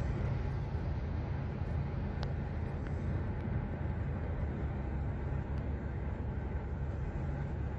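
Steady low rumble of a moving car's engine and tyres on the road, heard from inside the cabin, with a few faint ticks.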